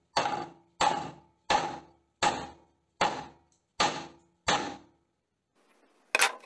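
A homemade hatchet, an aluminium plate glued to a steel rod with super glue and Polysorb, chopping down on a laminated chipboard board seven times, about every three-quarters of a second, as a strength test of the glued joint. A sharper double knock follows near the end.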